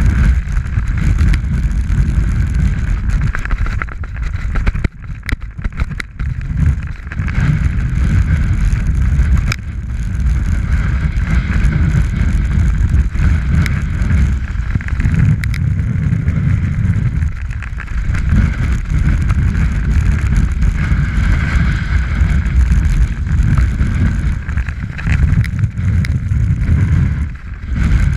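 Wind buffeting an action camera's microphone while a snowboard slides and scrapes over packed snow, a loud steady rumble with a hiss above it. The rumble drops briefly about five seconds in and again near the end.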